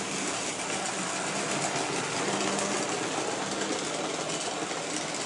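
Hornby model trains running on the layout: a steady whirr of small electric locomotive motors and wheels rolling on the rails, with a faint steady hum.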